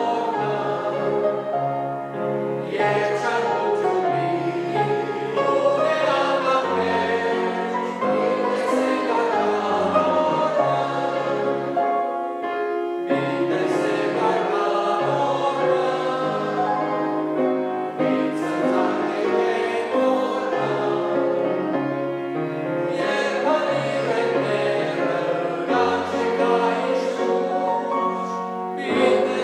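A church congregation singing a hymn together in Armenian, in long held notes with short breaks between lines.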